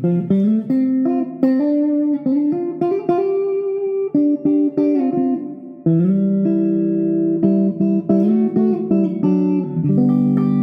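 Stratocaster electric guitar played through an amp: a run of picked notes, then held chords. The series-wired pickups are set with the bridge and middle single coils in parallel, in series with the neck pickup.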